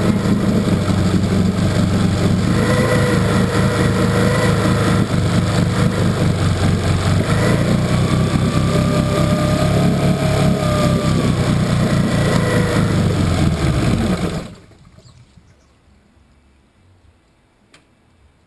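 1964 Evinrude Starflite two-stroke outboard motor running hard in a test barrel, a wavering whine riding over its steady drone. About three-quarters of the way through it cuts out abruptly, stalling as it runs out of gas.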